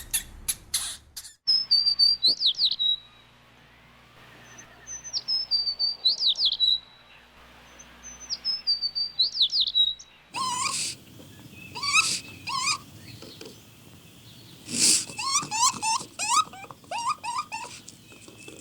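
Bird song: a short, high whistled phrase ending in a quick trill, repeated three times. About ten seconds in it switches to a different bird recording of rapid chirps and calls.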